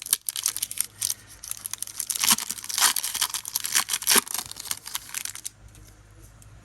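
Pokémon card booster pack wrapper being torn open and crinkled by hand, a dense crackling that stops about five and a half seconds in.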